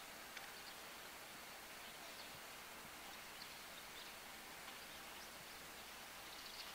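Faint outdoor background: a steady low hiss with a few faint, short bird chirps scattered through it.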